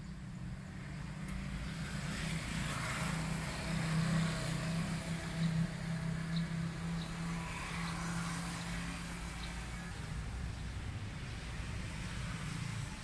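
A motor vehicle's engine running nearby, a steady low hum that swells and fades as it passes.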